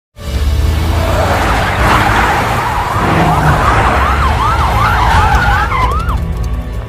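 Emergency-vehicle siren sweeping rapidly up and down, about twice a second, from a couple of seconds in until shortly before the end, over a loud low rumble and noisy wash.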